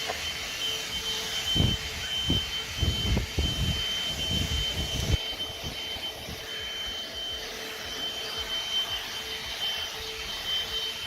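Small handheld 12-volt car vacuum running steadily with a high motor whine, with low knocks and rumbles of handling or nozzle bumping in the first half.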